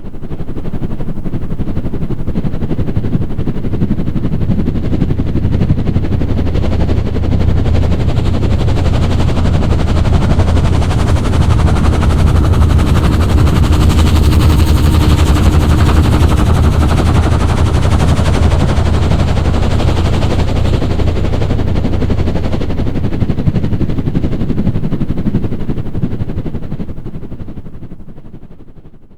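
Helicopter flying past: the rapid chopping of its rotor blades swells in, is loudest about halfway through, then fades away near the end.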